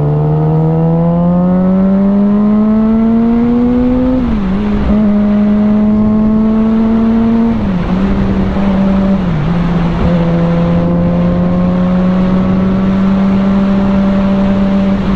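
Sport bike's engine being ridden on the road: the note climbs as it accelerates, drops at gear changes about four and eight seconds in, then holds steady at cruising speed, with a rush of wind and road noise underneath.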